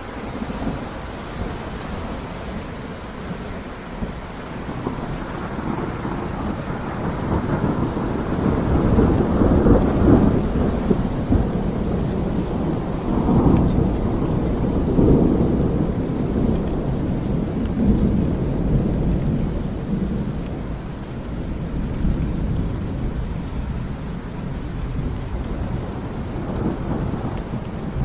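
Steady rain with a long roll of thunder. The deep rumble builds about a quarter of the way in, peaks twice in the middle, and eases off toward the end.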